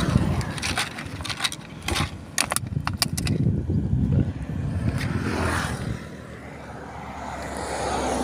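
A run of sharp clicks and knocks, with some scraping, as items are handled in a motorcycle's plastic under-seat storage tray. A steady low rumble runs underneath.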